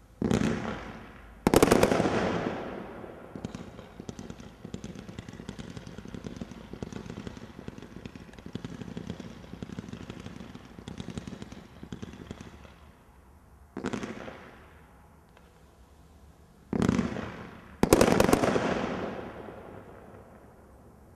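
Brothers Pyrotechnics Tri-Fawkes 66-shot firework cake firing. Its shells go off in sharp bangs near the start, followed by about ten seconds of rapid small pops and crackle. A few more bangs follow, the last two the loudest, each one trailing off.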